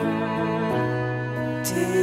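Background music of long held notes; the chord changes a little under a second in.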